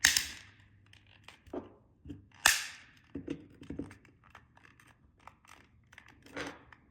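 The plastic case parts of a LiftMaster garage door remote being pressed together by hand: two sharp plastic snaps about two and a half seconds apart as the housing clicks into place, with lighter clicks and handling noise between.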